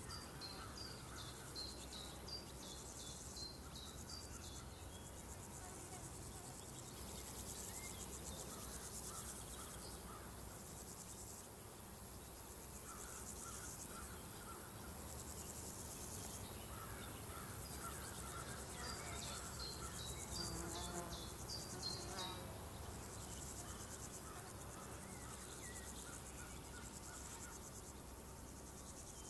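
Rural summer ambience of crickets and other insects chirring steadily. A very high, even insect trill switches on about a quarter of the way in and stops about two-thirds through. Small birds give quick series of short falling chirps at the start and again past the middle.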